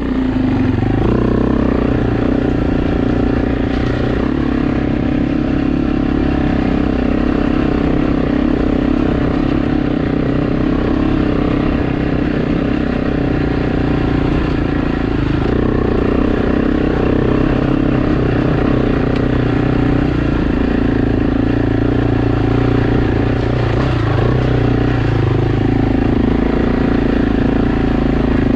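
AJP PR7 adventure motorcycle's single-cylinder engine running under way at a fairly steady pitch, with brief changes in throttle about halfway through and again near the end.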